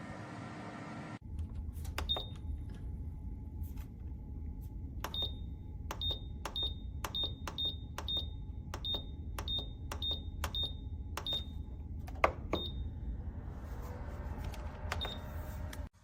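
Nuwave Bravo Pro air fryer oven beeping with clicks, over a dozen short high beeps at about two to three a second, like its controls being worked, over a steady low rumble from the running unit.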